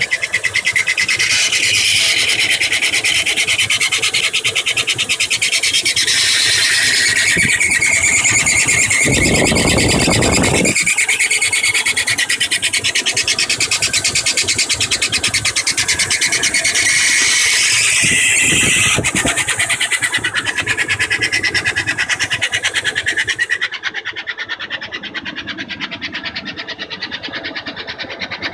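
2000 GMC Yukon XL's 5.3-litre V8 running with a loud, constant high-pitched squeal from the passenger side of the engine, a fast chirping squeal that comes on as the engine gets hot. The owner first took it for the water pump but is no longer sure.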